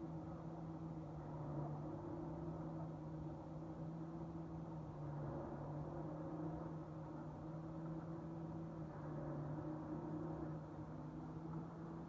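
Steady low hum with a fainter second tone above it, over a constant rumbling background noise that the recordist likens to very distant large metal objects.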